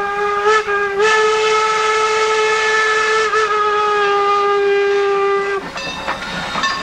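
Steam locomotive whistle blowing one long, steady blast for the grade crossing, broken briefly about half a second in and cutting off about five and a half seconds in. The passing cars then clatter over the rails.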